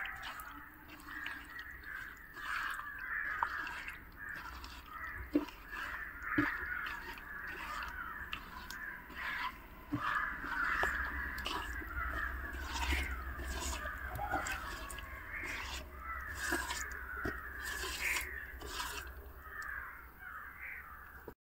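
Wet squelching and clicking of hands kneading cauliflower florets in thick cornflour and chilli batter in a clay pot, as short irregular clicks throughout. Behind it, a continuous chorus of bird calls.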